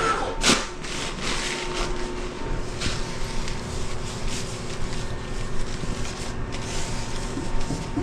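Paper towels rustling and scrubbing in short, irregular strokes as a toilet tank is wiped down, over a steady background hum.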